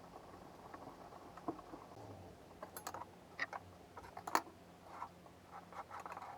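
Scattered light taps and clicks, a few sharper ones around the middle, over a faint steady hum.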